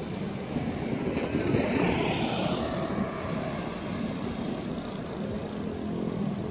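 Traffic noise of vehicle engines running and moving, with one vehicle passing close about two seconds in, its pitch sweeping up and back down.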